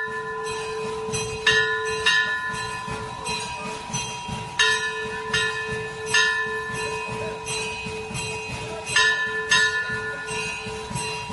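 Brass temple hand bell (ghanta) rung repeatedly, struck irregularly about once or twice a second, its tones ringing on between strikes.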